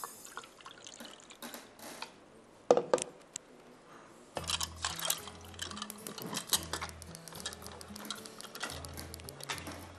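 Light clinks and knocks of plastic measuring cups and glassware being handled, one louder knock a little under three seconds in. Background music with a repeating bass line comes in about halfway through, under the clatter.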